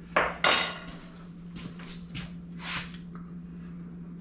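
Kitchen handling sounds while a baked pizza is sliced and plated: two sharp clinks of dishes or utensils right at the start, then several short, soft scrapes. A steady low hum runs underneath.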